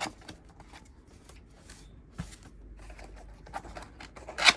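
Keyboard box being opened and its packaging handled: scattered rustles, scrapes and small clicks, with one louder, sharper rustle near the end.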